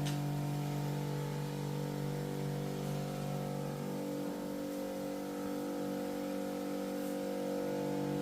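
A cleaning machine's motor running with a steady hum; its low tone shifts slightly about four seconds in.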